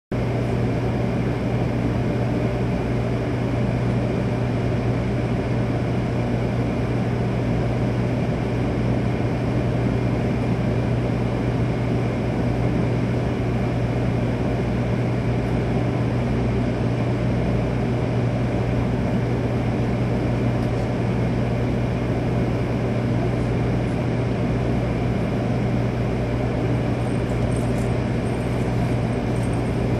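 Steady low hum over an even rushing noise inside a stopped Shinkansen car, the car's ventilation and running equipment, unchanging throughout.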